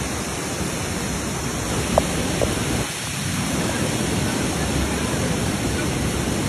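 Floodwater rushing in a fast, muddy torrent, with rain falling: a steady wash of water noise that dips briefly about halfway through.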